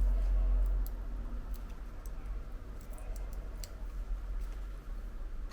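A few faint, scattered clicks of small repair tools against the phone, over a steady low hum.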